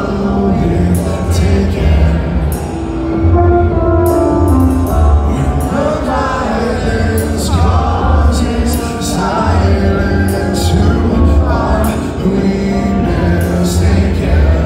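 Heavy metal band playing live and loud through the PA: heavy drums and bass with cymbal crashes under a male lead singer's vocal.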